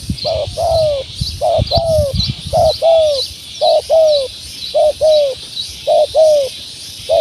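A dove cooing: a short two-note call repeated evenly about once a second. A faint high chirp repeats about twice a second behind it.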